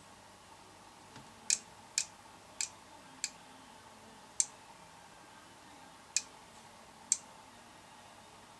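A portable appliance (PAT) tester clicking as it runs through its earth and insulation tests: about seven sharp, short clicks at uneven intervals, bunched in the first half.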